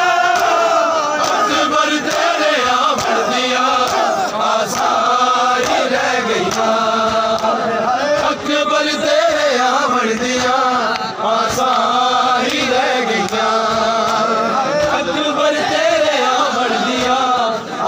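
A crowd of men chanting a Punjabi noha lament in unison, with hands striking bare chests in matam.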